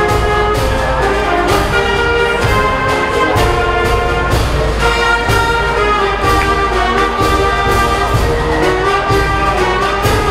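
High school concert band playing patriotic music, with brass, saxophones and drums.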